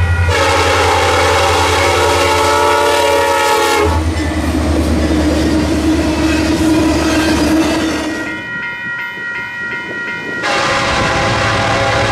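Diesel freight locomotive's air horn blowing a loud multi-note chord for about four seconds, then the engine and the rolling cars of a long double-stack container train running past, with some wheel clatter. A quieter run of short higher tones comes in around two-thirds of the way through, and another locomotive horn chord starts near the end.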